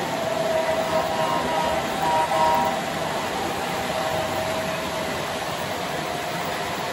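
Model freight train rolling past: a steady noise of small metal wheels running on the track, with a faint steady whine.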